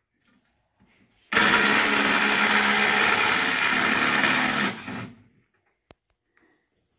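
Cordless drill running steadily for about three and a half seconds, backing a bolt out of the flange of a cast iron coffin's lid, then winding down; a small click follows.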